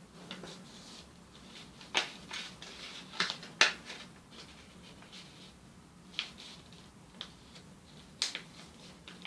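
Sheet of origami paper being folded and creased by hand on a tabletop: a handful of sharp paper crackles and snaps as folds are pressed flat, the loudest about three and a half seconds in.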